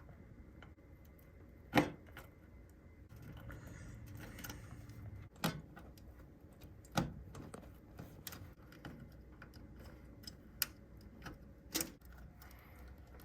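Irregular clicks and light knocks from cables and connectors being handled and plugged in inside a computer case, with five or so louder sharp clicks among them and a soft rustle a few seconds in.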